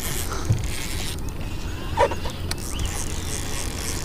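Fishing reel being cranked to reel in a hooked fish, a creaking, ratcheting mechanical sound with a few small clicks.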